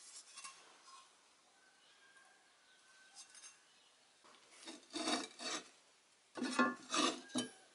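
Short rasping, rubbing strokes of a cut sheet-steel blade, with a slight metallic ring, in two quick runs: about three strokes, then about four more a second later.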